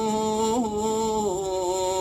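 A solo male voice singing an Arabic nasheed unaccompanied, holding one long drawn-out note with a small ornament about half a second in and a step down in pitch a little past the middle.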